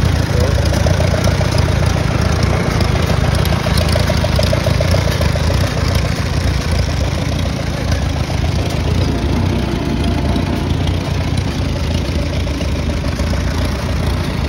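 Farmall B tractor's four-cylinder engine idling steadily at an even, unchanging speed.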